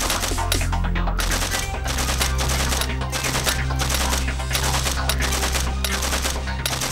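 Automatic weapons firing in rapid bursts with short breaks between them, over a low steady drone.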